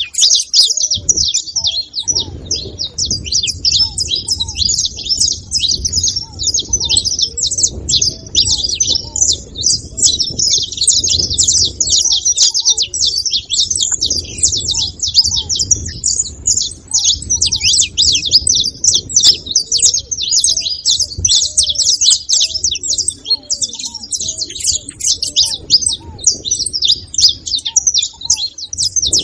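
Several saffron finches chirping and singing at once, a dense, unbroken stream of quick overlapping high chirps, over a low rumble.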